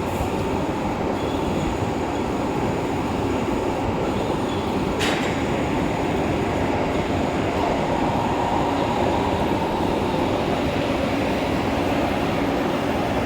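Heavy vertical lathe running with a steady grinding rumble and a faint continuous whine. A single sharp click about five seconds in.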